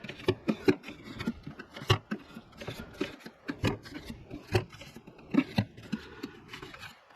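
Irregular light clicks and knocks of the cooling fan and fan clutch being spun by hand onto its reverse-threaded mount.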